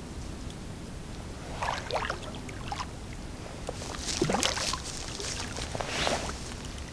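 Water splashing irregularly as a hooked carp thrashes at the surface near the bank while being played in. The splashes come in a few bursts, about one and a half, four and six seconds in.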